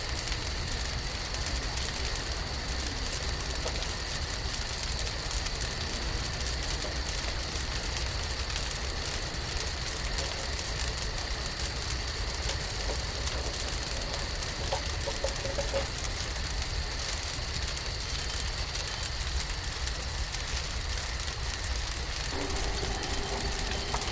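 Steady sizzling and crackling of food cooking over a campfire, with fine crackles throughout and a low rumble underneath.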